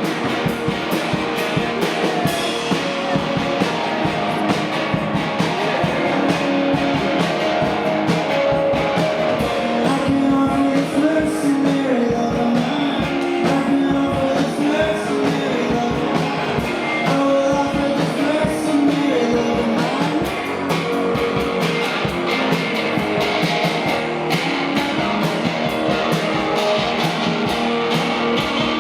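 Live rock band playing an instrumental break: guitars with bass and drums, no vocals.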